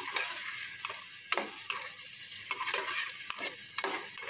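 Chopped tomatoes, onions and spices sizzling as they fry in oil in a pan, while a slotted metal spatula stirs them, with repeated scraping strokes against the pan.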